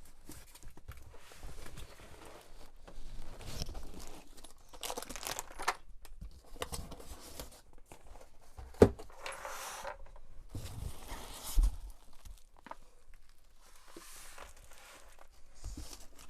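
Packaging being opened by hand: irregular tearing and crinkling rustles, with a sharp knock about nine seconds in and a dull thump a few seconds later.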